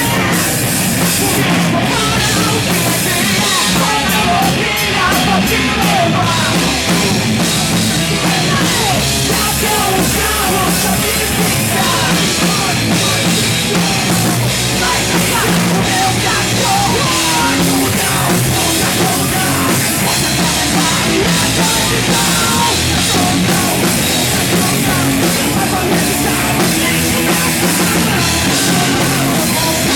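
Hard rock band playing live and loud: drum kit and electric guitars in a steady, dense instrumental passage.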